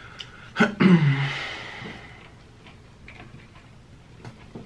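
A man's short vocal exhale about half a second in: a loud, breathy sound that falls in pitch and fades over about a second. Scattered small clicks of eating and food handling make up the rest.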